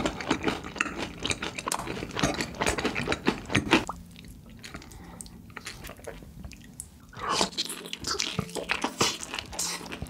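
Crispy fried chicken being bitten and chewed close to the microphone, with loud, crisp crunches. About four seconds in the crunching stops for a quieter pause of roughly three seconds, then the crunchy bites start again.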